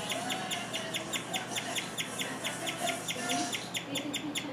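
Guinea pig chirping: a long, steady run of short, high, bird-like chirps, about six or seven a second, without a break.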